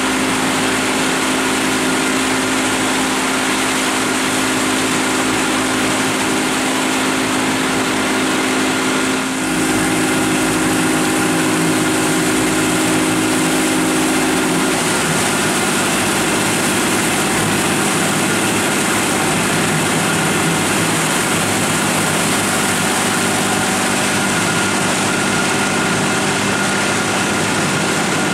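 Lobster boat's engine running steadily under way, over the rush of water and wind; the engine's tone shifts slightly about halfway through.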